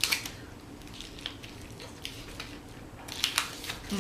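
Close-up chewing and mouth sounds of someone eating, with sharp wet clicks at the start and a short cluster of them about three seconds in.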